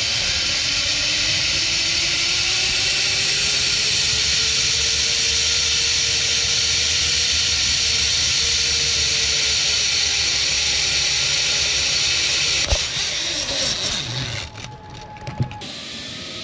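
Zip line trolley pulleys running along the steel cable, with wind rushing over the helmet camera's microphone and a whine that rises and then falls in pitch. About thirteen seconds in there is a sharp knock, and the rushing dies away near the end.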